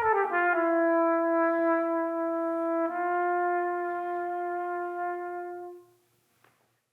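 A brass instrument slides down into one long held note, re-sounded about three seconds in, which then fades out near the end.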